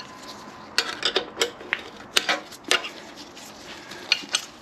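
Hand tools and metal parts clinking and tapping together in irregular sharp clicks and knocks, some with a brief metallic ring, as work goes on at the shifter cable linkage under the car.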